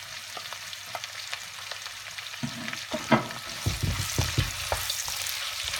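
Sliced onions sizzling in hot oil in a nonstick pan over a high flame, a steady hiss. From about halfway through, a wooden spatula stirs them, scraping and knocking against the pan.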